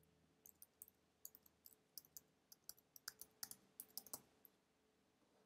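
Faint computer keyboard typing: a quick, uneven run of key clicks lasting about four seconds, stopping about a second before the end.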